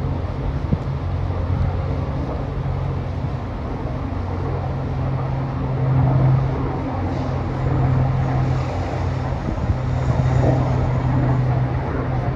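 A steady low engine hum under an even rushing noise, swelling a little about halfway through and again near the end.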